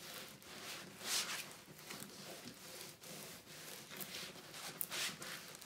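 Rustling and crinkling of a large diamond-painting canvas and its clear plastic cover film as it is rolled by hand, with louder crackles about a second in and again near the end.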